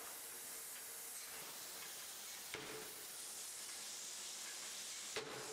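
Faint steady hiss with two faint metallic knocks, each with a brief ring, about two and a half seconds apart: an open-die forging hammer striking a red-hot steel workpiece.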